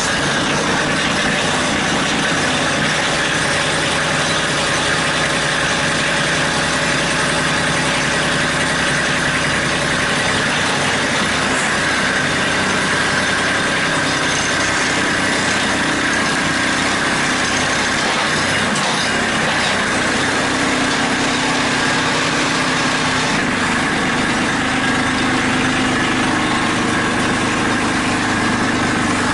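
Kubota B2650 tractor's three-cylinder diesel idling steadily, freshly started from cold at freezing temperature with no block heater.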